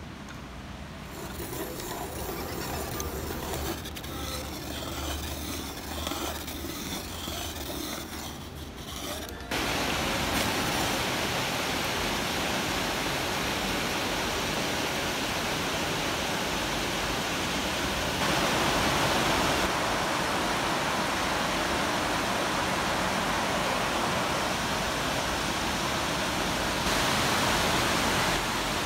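Steady rain: an even, constant hiss that starts abruptly about a third of the way in. Fainter, uneven sounds come before it.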